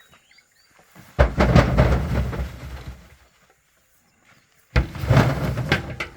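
Two loads of harvested corn dumped into a truck bed, each a sudden clatter that trails off; the first, about a second in, lasts nearly two seconds, the second, near the end, lasts just over a second.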